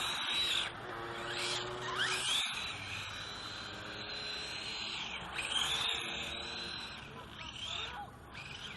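High-pitched whine of a small electric RC buggy's motor and drivetrain, the HBX Ratchet 1/18 4WD. The pitch rises as the car accelerates, holds, then drops as it slows, several times over as it is driven in bursts.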